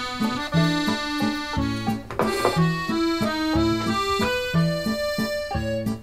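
Background music: a comical solo accordion tune, with bass notes alternating with chords about twice a second under the melody.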